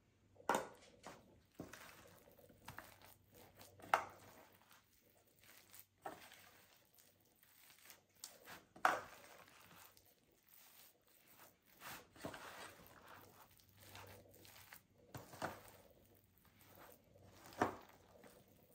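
Wet bread-cube stuffing being tossed and pressed in a disposable aluminium foil pan with a spatula and a hand: irregular soft crinkling and scraping of the thin foil, broken by a few sharper clicks.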